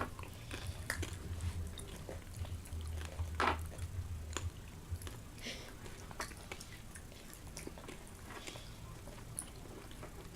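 Someone chewing an Oreo cookie with popping candy in the cream filling, with faint scattered clicks and crackles from the candy.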